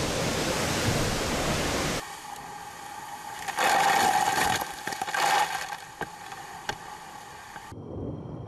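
Steady rushing hiss of wind and water aboard an ocean-racing sailing yacht; after an abrupt change about two seconds in, spray and water rush over the bow, loudest for a couple of seconds in the middle.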